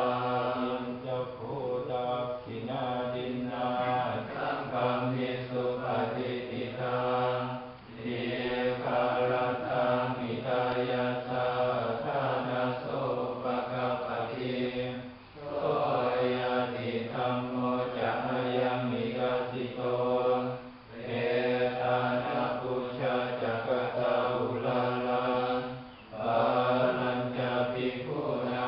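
A group of Buddhist monks chanting Pali blessing verses in unison, on a steady low pitch, in long phrases with a short breath pause between them four times.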